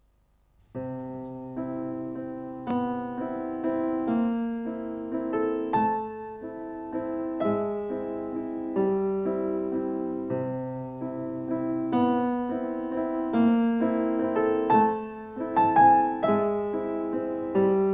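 Background piano music, a slow melody over held chords, beginning about a second in.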